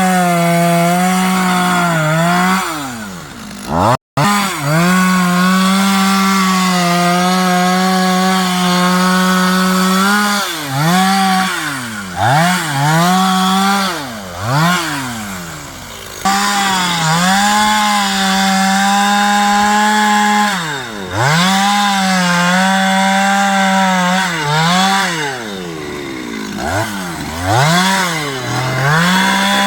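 Stihl chainsaw running at high revs while cutting wood, its pitch dropping and climbing back up again and again as the throttle is eased off and squeezed. The sound breaks off for an instant about four seconds in.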